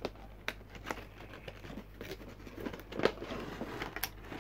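Cardboard box and clear plastic blister tray of an action figure being handled and slid apart: scattered clicks, taps and crinkling of plastic, with the sharpest tap about three seconds in.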